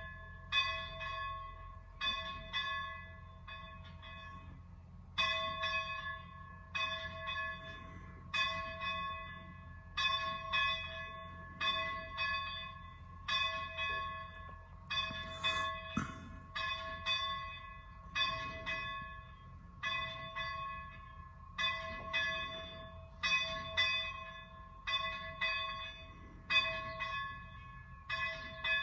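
A single church bell rung over and over, about one stroke a second, each stroke ringing on at the same pitch, with a short break about four seconds in.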